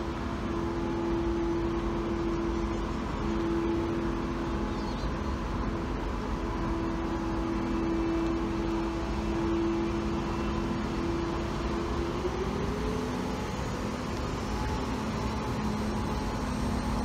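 Road traffic: a steady engine hum over a low rumble, its pitch rising about twelve seconds in, with a lower hum taking over near the end.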